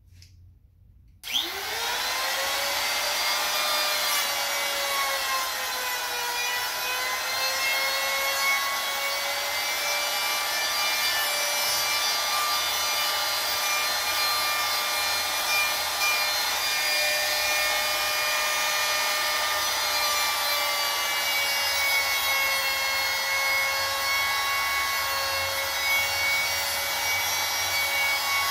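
Handheld trim router switched on about a second in, winding up quickly to a steady high whine and running on while it cuts the edge of a small pine panel, its pitch dipping slightly under load.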